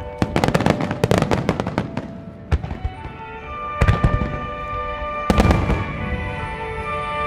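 Starmine aerial firework shells bursting. A rapid run of cracks and bangs comes first, then single booms, then another dense volley about two-thirds of the way through, over music with long held notes.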